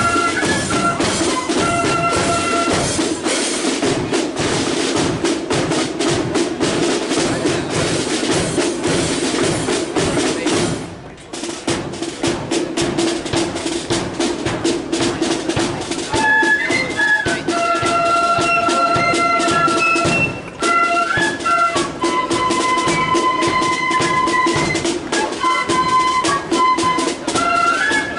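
A marching flute band playing: flutes carry a melody over a steady beat of snare and bass drums, with a brief break about eleven seconds in.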